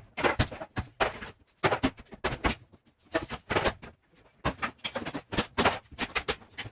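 Irregular, rapid banging and clattering of wooden kitchen cabinets being knocked and broken out during interior demolition, several hits a second with rattling after some of them.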